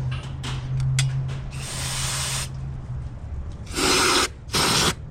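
A small power tool's motor runs with a steady hum and stops about three seconds in. Near the end come two short, loud hissing bursts.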